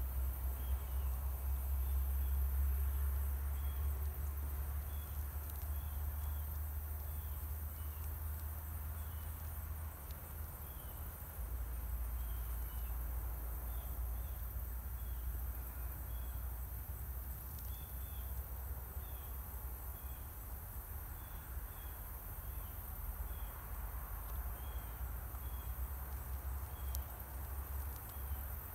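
Outdoor ambience: short high insect chirps scattered irregularly throughout, over a steady low rumble.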